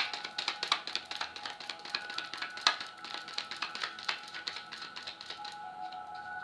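Tarot cards being shuffled by hand: a quick, dense run of card clicks that stops about five seconds in, over background music with steady held tones.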